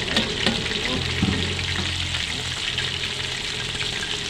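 Chicken finger strips deep-frying in hot oil: a steady, dense sizzle and crackle of bubbling oil, with a few small clicks in the first second and a half. The strips have fried crisp and are about done.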